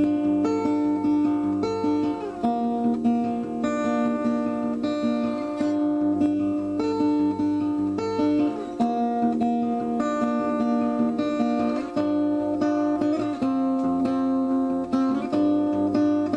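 Acoustic guitar music: plucked chords with notes ringing on, changing every second or two.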